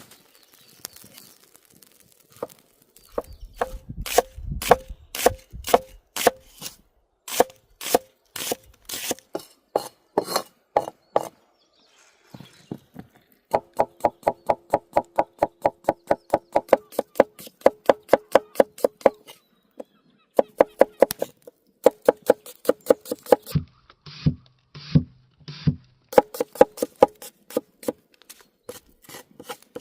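Knife chopping on a wooden cutting board: runs of quick, even strokes, about four to six a second, broken by short pauses, with a few heavier thuds among them.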